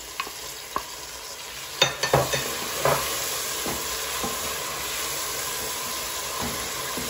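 Onion, garlic and pepper frying in oil in a pan, sizzling as they are stirred, with a few sharp knocks of the utensil against the pan. The sizzle gets louder about two seconds in and stays at that level.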